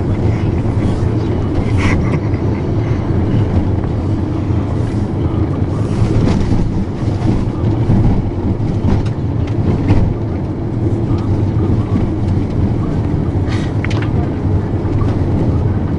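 Steady rumble of road and engine noise in a moving car, heard from inside the cabin.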